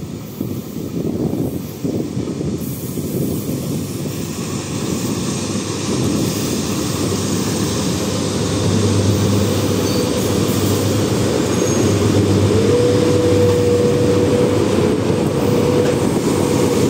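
VL80S electric locomotive hauling a freight train passes close by, its rumble and wheel noise growing steadily louder. A low hum comes in about halfway through, and a steady whine sets in about twelve seconds in.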